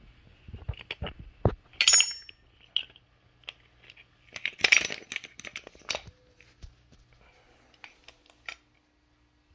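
Metal clinks and clicks as a Honda GL1200 Goldwing clutch assembly is worked with a C-clamp, compressing the pressure plate to free the snap ring. A single ringing metallic ping comes about two seconds in, and a burst of clattering about halfway through.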